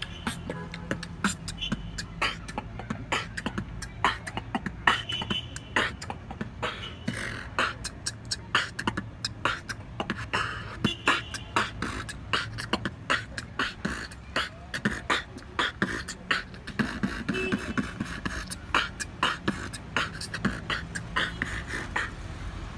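Human beatboxing, made with the hand cupped at the mouth: a fast, dense rhythm of sharp percussive mouth sounds, with a low hummed tone underneath in places.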